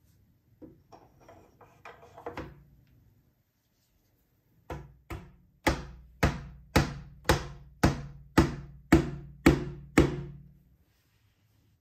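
A dark wooden key is slid and lightly tapped into a through mortise in a cherry trestle leg, then driven home with about eleven sharp knocks roughly twice a second, most likely mallet blows. Each knock rings briefly low through the table.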